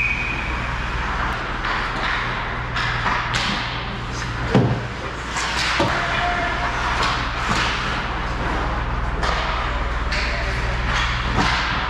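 Ice hockey play heard on the ice: skate blades scraping and carving, with sticks and puck knocking, over a steady low rink hum. There is one louder knock about four and a half seconds in.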